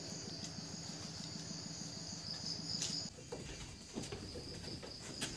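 Steady high-pitched trilling of insects, which falls away about three seconds in, with a few faint knocks.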